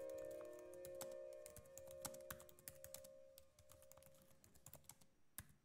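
Faint, rapid, irregular keyboard typing clicks, a typing sound effect, over a held music chord that fades out during the first four seconds or so.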